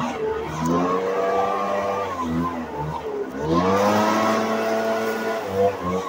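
A small engine revved up twice: each time the pitch rises, holds for about a second and a half, and falls back.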